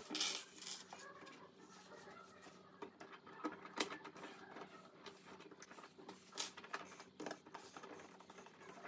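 Scattered light clicks and taps of carbon-fibre hexacopter frame parts being handled and fitted together on a wooden desk.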